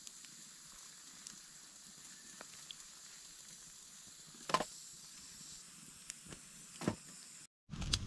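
Small fire of thin twigs burning inside a folded metal windshield: a faint steady hiss with scattered small crackles and two sharper snaps, about four and a half and seven seconds in.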